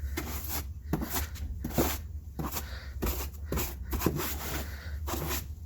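Stiff bench brush sweeping loose dirt off a scooter's plastic floor panel, in quick repeated scrubbing strokes, about three a second.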